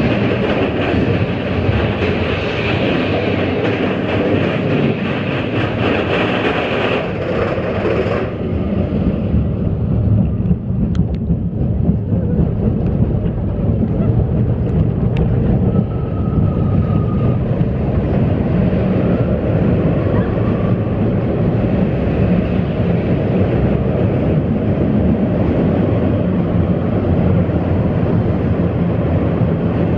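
Big Thunder Mountain mine-train roller coaster running along its track, heard from on board: a steady, loud rumble and clatter of the train's wheels. A brighter hiss on top of it drops away about eight seconds in while the rumble carries on.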